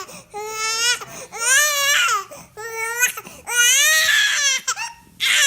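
A baby crying: a string of high-pitched wails, each about a second long, broken by short breaths.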